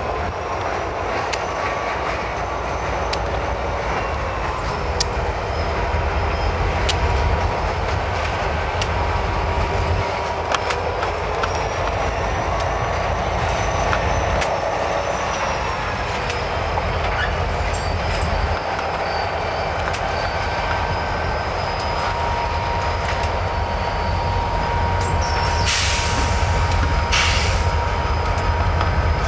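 CSX diesel locomotives rolling slowly through a rail yard, their engines giving a steady low rumble under a thin, steady wheel squeal. Two short bursts of hiss come near the end.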